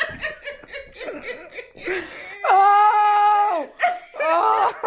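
Women laughing, with a loud, high voice held on one pitch for about a second midway through, then a wavering laugh near the end.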